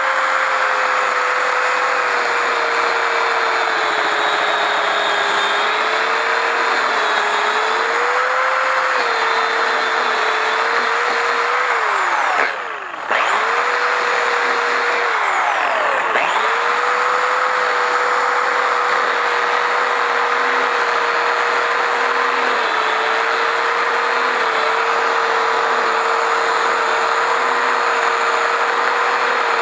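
Portland electric pole saw running with a steady high whine, its pitch sagging slightly as the chain cuts into pine branches. About halfway through the trigger is let off and the motor briefly spins down and revs back up, and it does so again a few seconds later.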